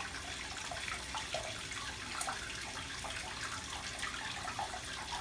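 A cat licking a bathtub's enamel: irregular short wet licking clicks, about two or three a second.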